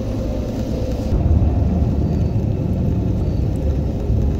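Vehicle driving on a rough dirt mountain road: a steady low rumble of engine and road noise, a little louder from about a second in.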